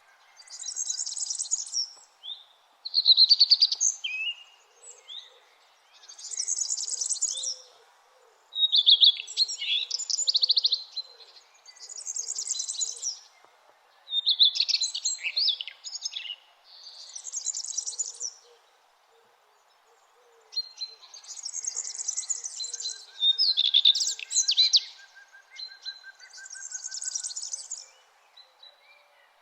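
Songbirds singing: short phrases of high chirps and trills, a new phrase every two seconds or so, over a faint steady background hum.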